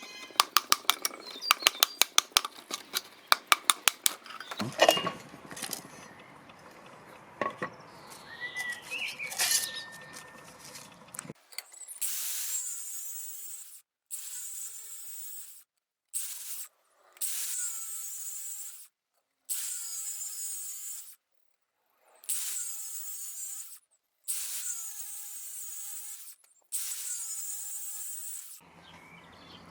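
Tools at work: a fast run of sharp clicks, then mixed clatter, then a power tool running in a series of short bursts that start and stop abruptly.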